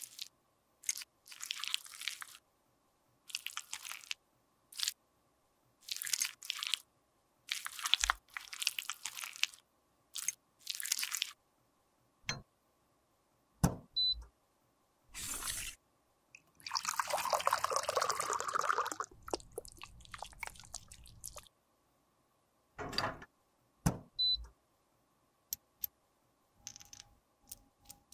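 A metal spatula scraping and crunching pieces of broken lipstick into a small glass cup, in about a dozen short strokes. Then come a few sharp clicks and a longer noisy sound lasting about five seconds.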